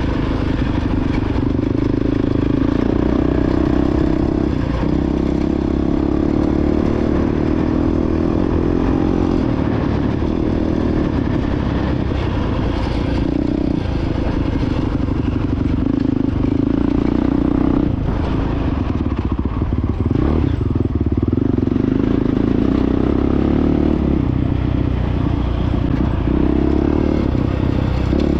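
Honda CRF450X single-cylinder four-stroke dirt bike engine running under steady throttle, its note dipping briefly a few times as the throttle is eased or a gear is changed, with rattling from the bike over rough ground.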